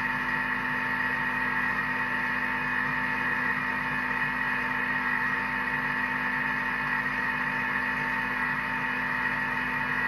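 Thermomix food processor's motor running steadily as its blade mixes the cake batter in the bowl.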